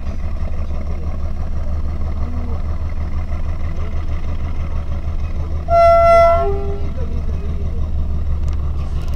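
Steady low engine and road rumble of a moving vehicle. About six seconds in, a horn sounds for under a second: a high note, then a short lower one.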